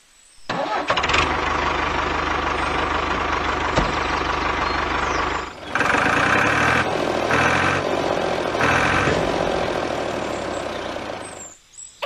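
Tractor engine starting and then running steadily. It cuts out briefly about five and a half seconds in, comes back with three louder pulses, and fades shortly before the end.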